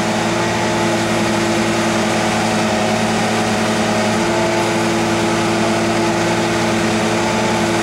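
Caterpillar diesel engine of a 1994 Tigercat 726 feller buncher running steadily while the machine is raised and lowered on its hydraulics, with one steady tone growing stronger about four seconds in.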